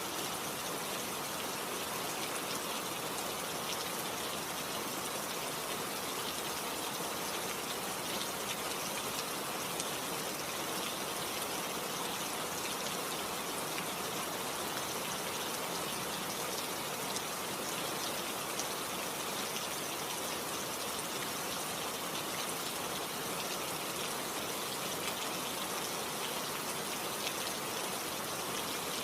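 Steady rain falling, an even hiss of many drops with fine pattering ticks.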